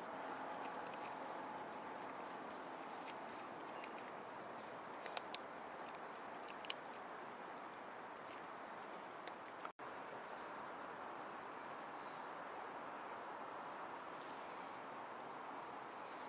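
Two kittens eating dry cat food from a plastic tray: a few faint sharp clicks and crunches over a steady faint hiss, with the sound cutting out for an instant about ten seconds in.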